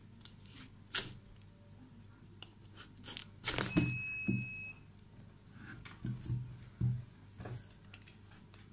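Large kitchen knife cutting through a pumpkin's hard rind, with crunches and cracking tears as the wedges are prised apart. The loudest splitting comes about three and a half seconds in, with a thin high squeak lasting about a second, and a few more knocks and cracks follow.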